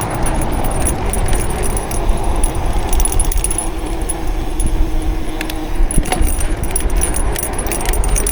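Mountain bike ridden fast down a rough trail: the chain rattling and clattering, over a steady low rumble of wind on the microphone.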